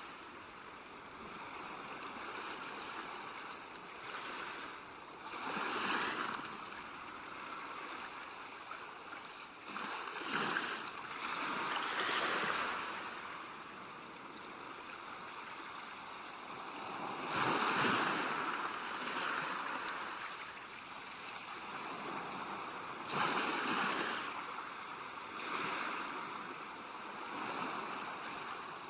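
Ocean waves breaking on a shore, a steady wash of surf that swells into a louder crash every few seconds.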